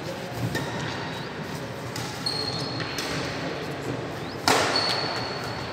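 Badminton racquets striking a shuttlecock during a rally, a few sharp hits some seconds apart with the loudest about a second before the end, along with short high squeaks of shoes on the wooden court, all echoing in a large hall.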